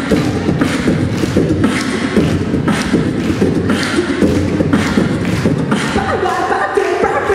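Beatboxing through a handheld microphone: mouth-made drum beats, with snare-like strokes about once a second over a continuous low bass sound. Pitched vocal tones join about six seconds in.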